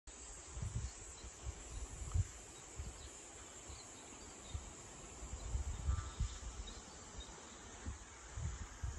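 Outdoor hillside ambience: a steady high-pitched insect drone, with wind buffeting the microphone in irregular low gusts.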